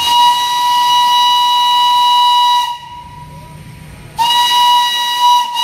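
Darjeeling Himalayan Railway steam locomotive's whistle blown twice: a long blast of about two and a half seconds, then after a short pause a second, shorter blast. Each blast is one steady high tone with steam hiss.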